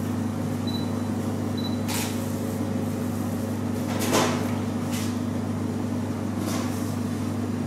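Lumps of stiff, fruit-studded stollen dough being pulled apart and set down on a scale and a wooden bench, giving a few soft thuds, the loudest about four seconds in. A steady low electrical hum runs underneath, and two faint short high beeps come near the start.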